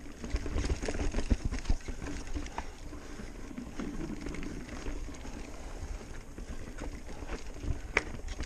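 Mountain bike rattling and clattering over a rooty, rocky dirt trail, with frequent irregular thumps and knocks as the wheels hit roots and rocks, and a sharp click near the end.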